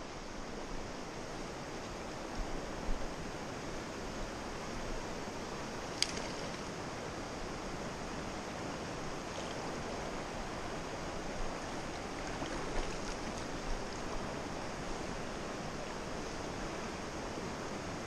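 Shallow river rushing over rocks in a steady wash of water noise, with one sharp click about six seconds in.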